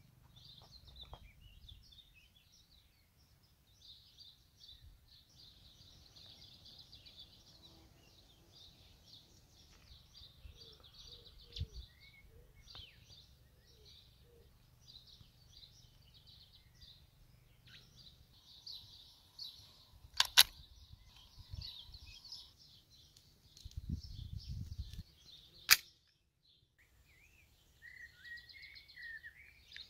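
Small birds chirping and singing over a low rumble, with two sharp clicks from a VFC Glock 19 Gen.3 gas blowback airsoft pistol being handled, about 20 and 26 seconds in.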